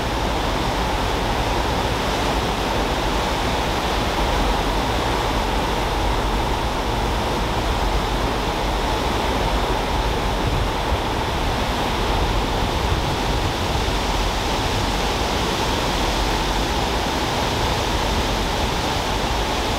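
Steady rushing of churned sea water and wind aboard a wave-piercing high-speed car ferry under way, powered by water jets, with a low rumble underneath.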